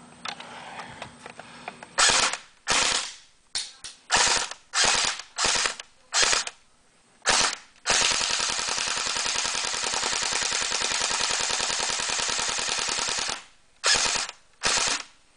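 Airsoft rifle built as an Alien pulse rifle replica firing on full automatic: about ten short bursts, then one long sustained burst of about five seconds, then two more short bursts near the end.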